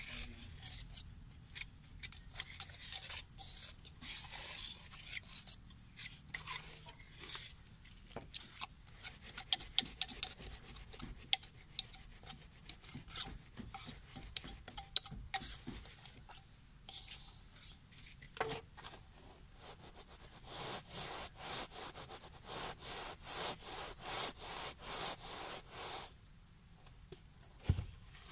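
Hand tools and a metal pattern scraping and rubbing against a packed sand casting mould, with scattered clicks and taps. In the second half this settles into a steady run of even back-and-forth rubbing strokes, and there is one dull thump near the end.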